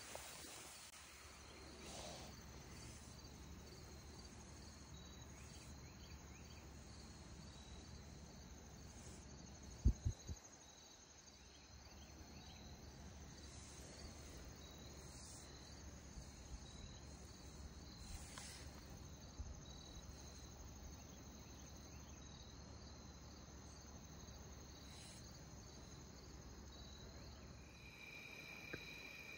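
Crickets and other insects chirping in a steady, high, pulsing chorus. Two or three dull low thumps come about ten seconds in.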